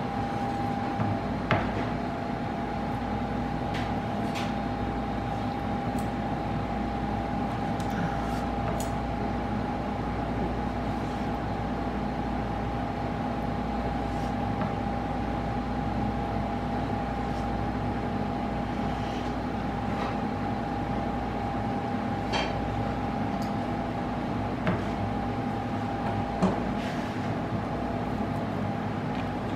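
Scattered light taps of a long sashimi knife touching a wooden cutting board as fish is sliced, over a steady background hum.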